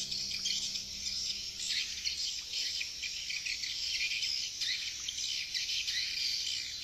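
Swiftlet calls used to lure swiftlets to a bird house: a dense, continuous high twittering of many short chirps.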